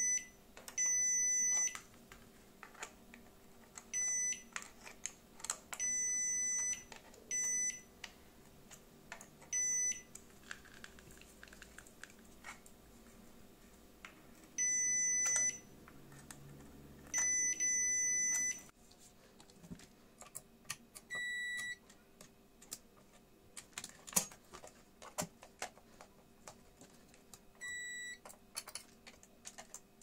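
Digital multimeter's continuity buzzer beeping again and again as its probe tips touch the power strip's plug pins and outlet contacts. Each beep of varying length signals a closed circuit, passing the continuity test. Light clicks and scrapes of the probe tips and plastic come between the beeps, and two shorter beeps of a different tone follow in the second half.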